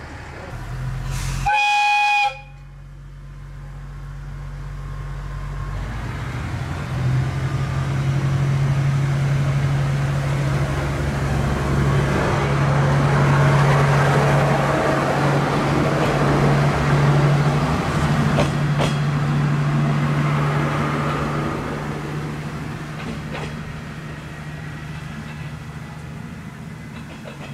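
Tenryu Hamanako Railroad diesel railcar sounding one short horn blast, then its diesel engine running steadily as it pulls away past the platform. The engine builds after the horn, is loudest midway and fades toward the end.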